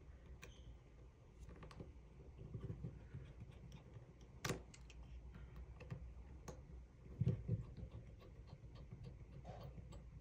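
Faint scattered clicks and ticks of a precision screwdriver turning tiny screws into the metal bracket of an iPhone screen assembly. There is a sharper click about four and a half seconds in and a soft low bump about seven seconds in.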